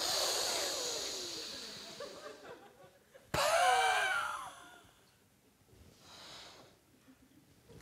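A woman's forceful exhalations for a facial stretching exercise: a long hissing, voiced breath that falls in pitch, then a sudden louder one with a wavering pitch about three seconds in, and a faint breath near the end.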